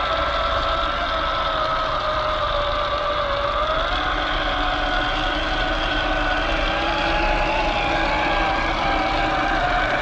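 Electric motor and gears of a 1/10-scale RC crawler whining steadily as it crawls along; the pitch sags slightly about three seconds in, then rises again.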